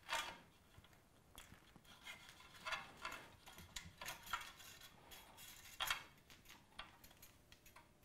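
Bicycle spokes clicking against each other and against the hub flange as they are threaded through a White Industries hub while lacing a wheel: a faint, irregular scatter of light metallic ticks, a few louder than the rest.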